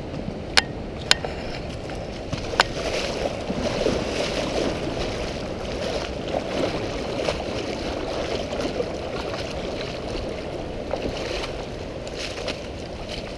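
A hiker wading shin-deep across Havasu Creek: fast water rushing and splashing around the legs with each step, with three sharp knocks in the first three seconds.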